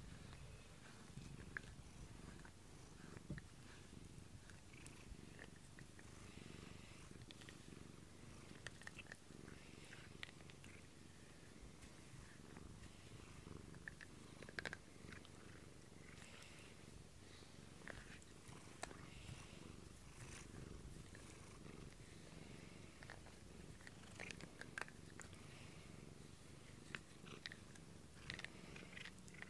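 Domestic cat purring steadily and softly, close to the microphone, with scattered faint clicks.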